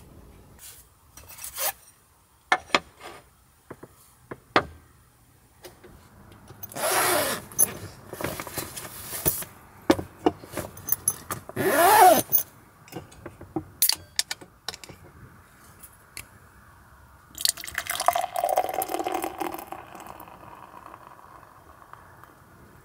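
Light clicks and knocks, then two short hissing bursts as a can of beer is opened. About eighteen seconds in, beer is poured from the can into a glass, a couple of seconds of gurgling and fizzing as it foams.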